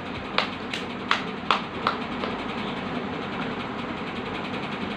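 A baby's hands clapping, about six quick claps in the first two seconds, over a steady background noise.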